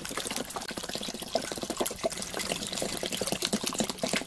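A stream of water pouring into a stainless steel stockpot full of vegetables and dried anchovies, splashing and gurgling steadily as the pot fills for anchovy broth.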